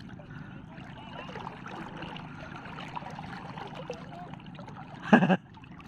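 Steady splashing and lapping of water, with one sudden short, loud knock about five seconds in.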